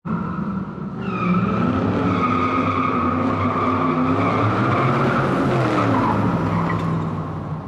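Car tyres squealing in a burnout while the engine revs, the squeal held steady and the engine pitch rising and falling beneath it. It fades a little near the end.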